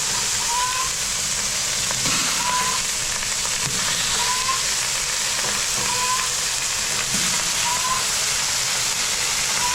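Steak frying in butter on a Blackstone flat-top griddle: a steady, even sizzle. A faint short rising chirp repeats about every two seconds.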